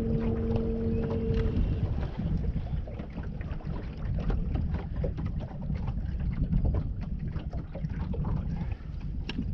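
Open-water ambience on a boat: wind buffeting the microphone and water lapping against the hull in small irregular slaps, with a steady hum that stops about a second and a half in.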